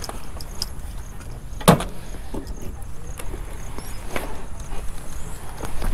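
A sharp knock about two seconds in and a softer one a little after four seconds, over a steady low rumble.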